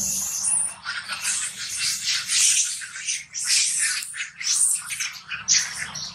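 Dry fallen leaves rustling and crunching in quick, irregular bursts, like footsteps scampering over leaf litter.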